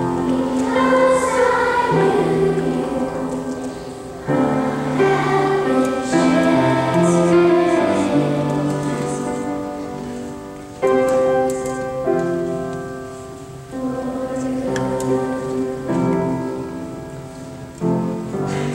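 Children's choir of third graders singing a song in held phrases, each new phrase starting strongly after a short break.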